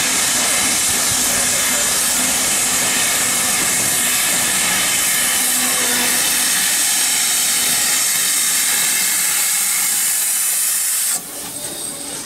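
Steam locomotive's safety valves blowing off: a loud, steady hiss of escaping steam that cuts off suddenly about eleven seconds in as the valves reseat.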